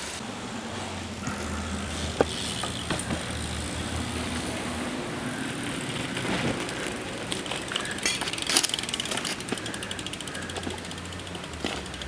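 BMX bike being handled, with a few knocks and the rear hub's freewheel clicking in a fast, even ticking about nine seconds in.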